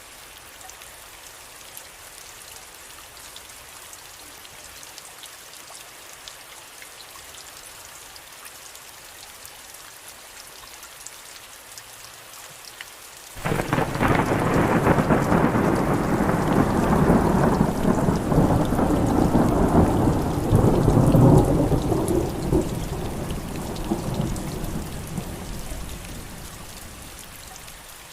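Steady rain falling, then about halfway through a sudden clap of thunder that rolls on as a long rumble and slowly fades back under the rain.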